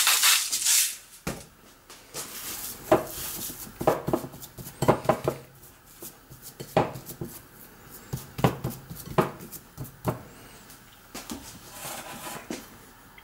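Kitchen utensils, dishes and pans clinking and knocking, a series of separate sharp clinks with a short ring, after a loud rattling noise that stops about a second in.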